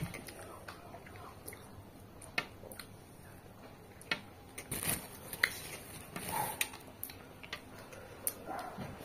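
Close-up eating sounds of peeled orange segments being bitten and chewed: irregular sharp wet mouth clicks and smacks, with a couple of longer squelchy chewing sounds about halfway through.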